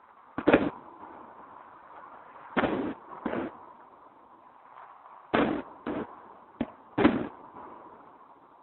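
Fireworks exploding: about seven sharp bangs at irregular intervals, a few in quick pairs, each with a short rumbling tail.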